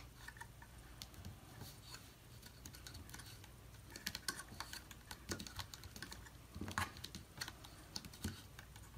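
Faint, irregular clicks and rustles of hands pressing and smoothing a cardstock box panel flat against a cutting mat, setting a glued acetate window in place.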